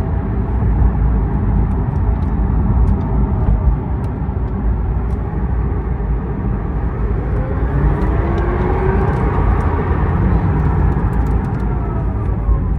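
Rimac Nevera electric hypercar driving, with a steady low rumble of road and tyre noise. About seven seconds in, the whine of its electric motors rises in pitch as it speeds up, then falls away near the end.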